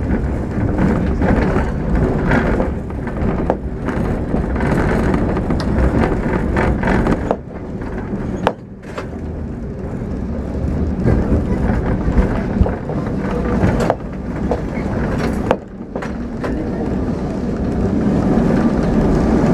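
On board a vintage Lisbon tram in motion: the steady rumble and rattle of the car body and steel wheels running on street rails, with a few sharp knocks along the way.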